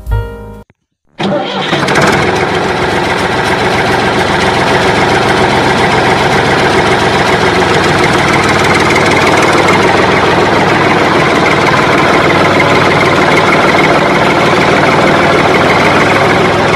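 An engine starts abruptly about a second in, after a short silence, and then runs steadily and loudly without changing pitch.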